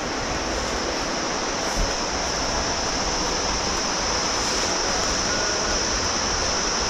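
Steady rushing noise with a steady high-pitched drone over it.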